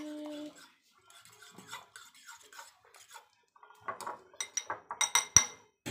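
Metal spoon stirring omelette egg mixture in a ceramic bowl: soft scraping clicks, then a quick run of sharp, ringing clinks of spoon against bowl from about four seconds in, ending in one loud knock.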